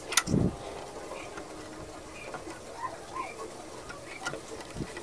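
Handling noises from an opened Canon MG2440 inkjet printer as a flat ribbon cable is eased back into the print-head carriage. A sharp click and a dull thump come just after the start, then a few faint ticks.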